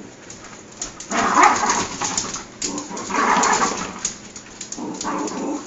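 West Highland white terrier growling and worrying a toy in three bursts of about a second each, worked up over the squirt of dishwasher soap.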